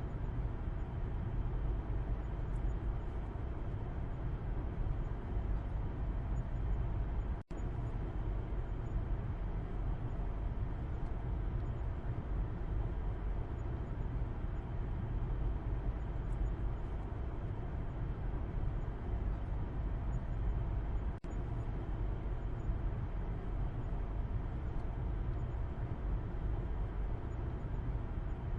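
Steady low road-and-engine rumble of a car heard from inside the cabin from the back seat, with no distinct events. The sound cuts out for an instant twice, about seven seconds in and again about twenty-one seconds in.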